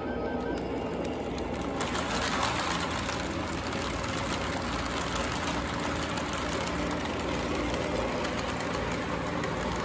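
O gauge model train running on three-rail track: a steady motor hum with the rolling rattle of wheels on the rails, growing louder about two seconds in as the cars pass close by.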